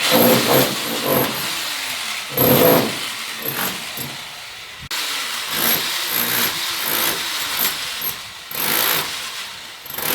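Angle grinder cutting into a lightweight concrete wall to make chases and cutouts for electrical boxes and conduit. The motor runs loud with rising and falling pitch as it bites into the block, with several louder surges.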